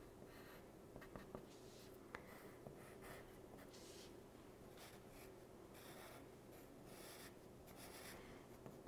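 Faint scratching of a wooden pencil drawing on paper, in a string of short strokes with brief pauses between them.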